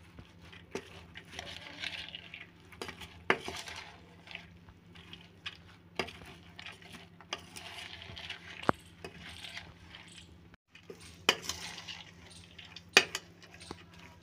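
Metal spoon stirring moist boiled moth beans with chopped onion and tomato in a steel pot: repeated rustling scrapes, with sharp clinks where the spoon strikes the side of the pot.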